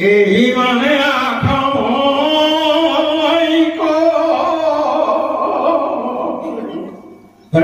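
A man chanting a scripture verse solo in a long, melodic sung line of held, slowly wavering notes, fading away near the end before the chant starts again.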